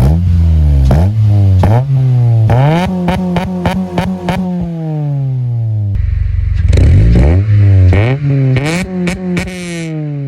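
Honda K20A four-cylinder engine revved in repeated blips, the pitch climbing and falling back, with sharp crackles from the exhaust as the revs drop. The exhaust joint's loose bolts have just been replaced and tightened to stop a leak and rasp.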